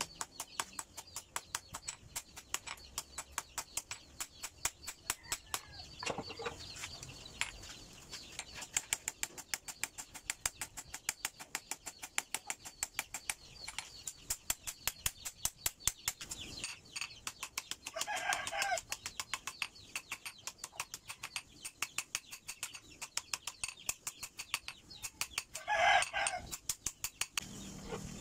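Hand hammer striking a red-hot steel knife blade on an anvil in a fast, even run of ringing blows, about three to four a second, while the blade is forged to shape. A chicken calls twice, about halfway through and near the end, the second call being the loudest sound.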